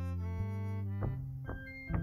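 Background music on a keyboard instrument: held low chords, with a few new notes struck about a second in and again in the second half.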